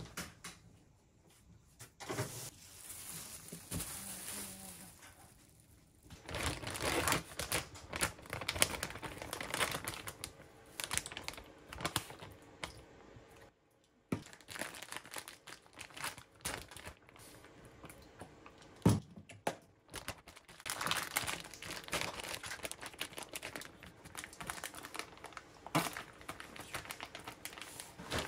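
Plastic food bags crinkling and rustling as raw chicken is worked with shio koji inside them and a zip-top bag is sealed, in irregular spells with a few sharp knocks, the loudest about two-thirds of the way through.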